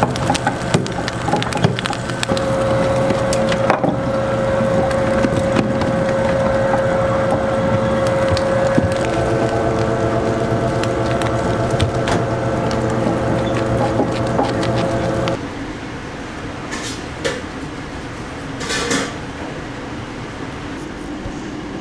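A machine runs with a steady hum and scattered clicks, then cuts off suddenly about fifteen seconds in. After that there are a few light knocks and a short scrape.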